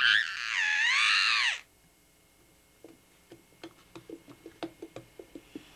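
A young boy screaming, one loud, high-pitched, wavering cry of about a second and a half. A run of quick light knocks follows in the second half.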